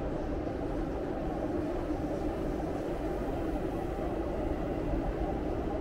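Steady low rumble of passing city traffic, with no distinct knocks or breaks.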